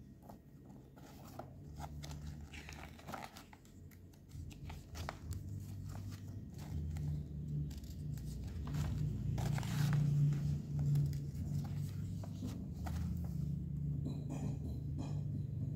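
Paper pages of a printed instruction booklet being handled and turned, with irregular rustling and crinkling, busiest about two-thirds of the way through, over a steady low hum.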